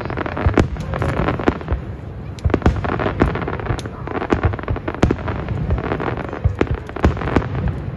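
Aerial firework shells bursting, with many sharp bangs in quick, irregular succession over a continuous background rumble.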